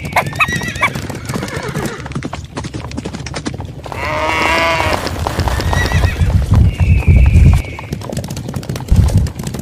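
Stampede sound effect: many hooves clattering, with animal calls over them, the loudest about four seconds in and another held call near seven seconds, over a low rumble that swells in the middle.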